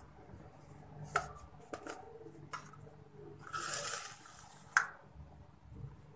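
Kitchen handling sounds: a cotton cloth rustling over a steel plate of dough, a few light knocks of the steel plate, and a short scraping hiss about halfway through as the plate is slid across the counter, followed by a sharper knock.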